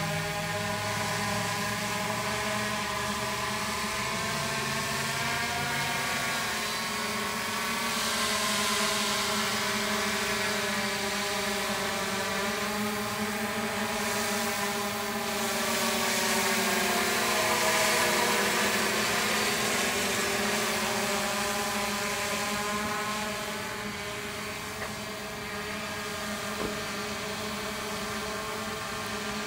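Multirotor drone flying, its propellers giving a steady hum of several tones that waver slightly in pitch. The hum grows louder about a quarter of the way in and again just past the middle.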